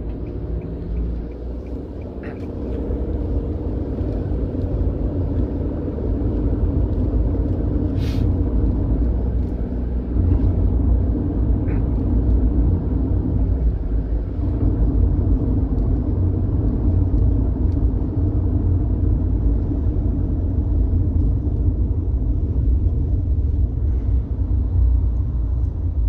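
Steady low rumble of engine and tyre noise heard inside a moving passenger van's cabin, growing louder a few seconds in and again about ten seconds in.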